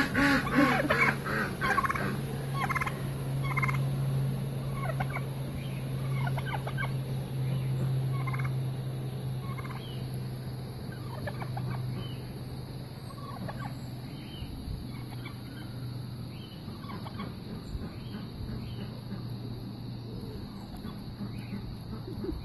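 Domestic tom turkey gobbling over and over as it struts with its tail fanned, the calls loudest and closest together in the first few seconds and sparser after. A steady low hum runs underneath and fades after about sixteen seconds.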